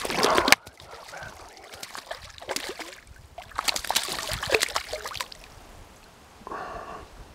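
Smallmouth bass splashing at the water's surface as it is handled and let back into the water, with a burst of splashing at the start and a longer run of splashing about four seconds in.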